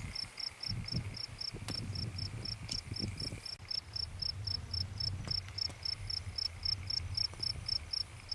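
An insect, cricket-like, chirping steadily in even short high chirps, about four or five a second, over a low uneven rumble.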